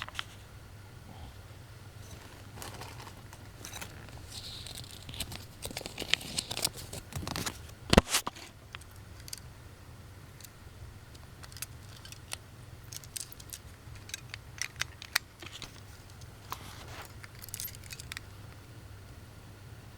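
Handling noises from small plastic items and their packaging: crinkling and scattered light clicks, with one sharper click about eight seconds in, over a faint steady low hum.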